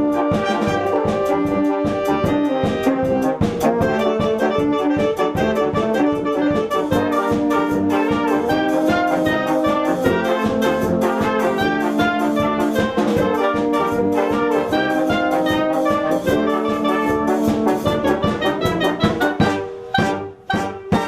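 Brass band playing a fast piece over a steady percussion beat, finishing with a few separate accented chords near the end.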